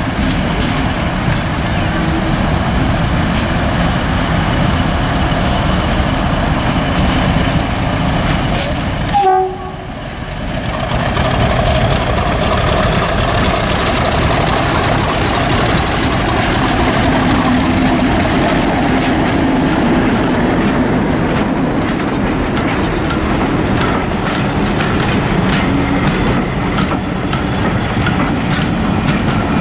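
British Rail Class 50 diesel-electric locomotive, with its English Electric 16-cylinder engine, approaching and passing under power, followed by its coaches rolling by on the rails. The sound drops out briefly about nine seconds in.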